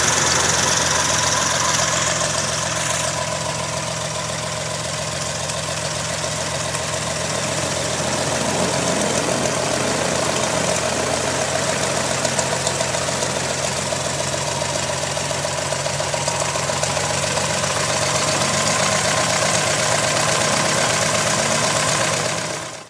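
Continental O-300 six-cylinder air-cooled aircraft engine and propeller of a Cessna 172G running steadily on its first run after a top overhaul. It dips slightly in loudness a few seconds in, then picks up again, and the sound drops away right at the end.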